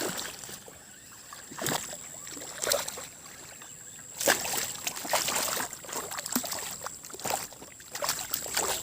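Irregular splashing and sloshing of water in several short bursts, with the busiest stretch about halfway through.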